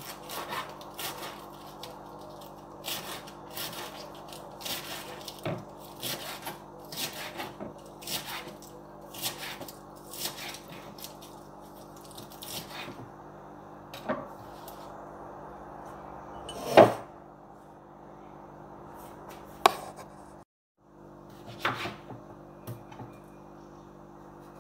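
Kitchen knife chopping lettuce on a wooden cutting board: a steady run of chops for roughly the first half, then a few separate knocks, the loudest about two-thirds of the way through, over a steady low hum.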